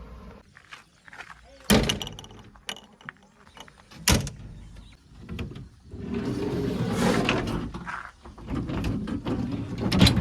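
Sharp metal knocks and clanks, two of them loud, with a couple of seconds of rushing, scraping noise in the middle and a low hum under the later clanks.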